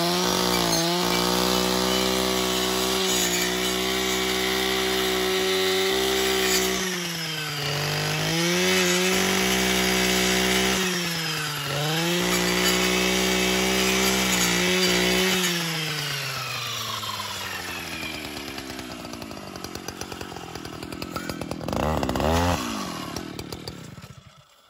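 Stihl FS 560 C-EM brushcutter's two-stroke engine running at full throttle, its pitch dipping several times as the carbide-tipped circular saw blade bites into sapling trunks. About fifteen seconds in, the engine winds slowly down toward idle, revs once more briefly, and fades out near the end.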